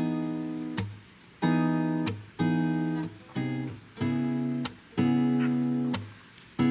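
Background music: strummed acoustic guitar chords, a new chord about every second, each ringing out and fading before the next.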